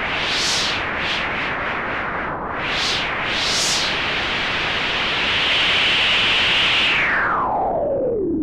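Synthesized storm-wind sound effect from the u-he TyrellN6 software synth: filtered white noise with a cutoff that swells and falls in several quick gusts, holds at a steady hiss, then sweeps down in one long falling whoosh near the end.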